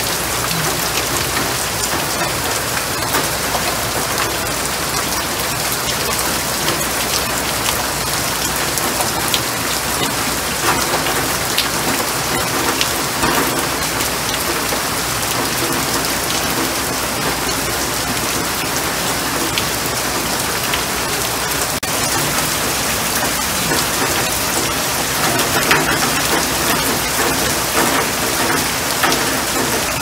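Heavy rain pouring onto standing water on pavement: a dense, steady hiss of splashing drops, thick with fine ticks of individual drops hitting the water.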